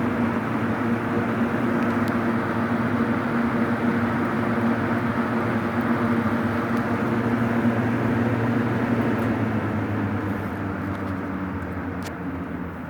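Vintage Hunter box fan (model 11027, seven plastic blades, 2.7 amp two-speed motor) running on high speed: a steady rush of air over a constant motor hum. Near the end the sound eases off and gets quieter, and there is a single click.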